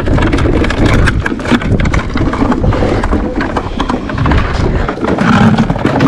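Wind buffeting an action-camera microphone with a heavy, fluttering rumble, mixed with scattered knocks and taps as small mackerel scad are handled and dropped into a plastic bucket.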